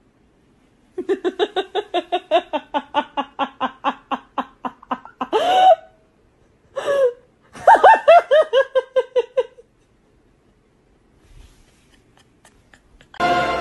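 A woman laughing hard in a long run of quick ha-ha bursts, about five a second, then a high cry and a second fit of laughter. Orchestral music with timpani comes in near the end.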